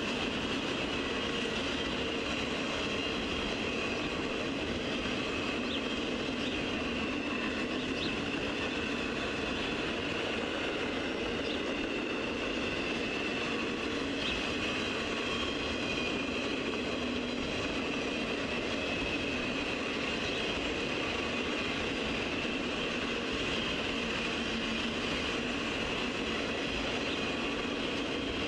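Freight cars of a mixed freight train rolling steadily past, a continuous rumble of steel wheels on rail with a faint high-pitched wheel squeal running through it.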